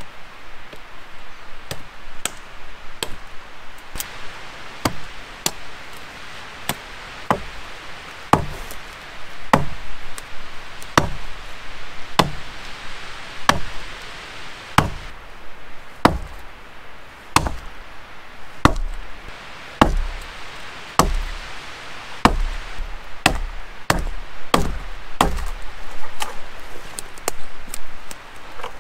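Axe chopping wood: a long run of sharp strikes, roughly one a second, with heavier, deeper blows in the second half.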